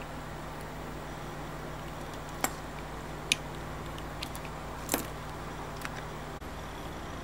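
A few small, sharp metallic clicks as tiny parts are handled and fitted by hand on a Seiko 7009 automatic watch movement, over a steady low hum.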